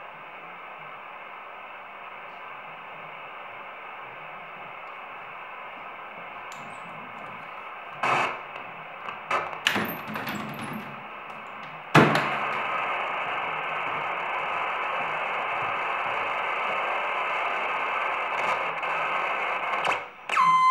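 Soviet R-250 military valve receiver putting out a steady hiss of static while it is tuned, the weak reception of a plain wire antenna. A few clicks and crackles come around the middle, after which the hiss is suddenly louder. A short steady whistle sounds near the end.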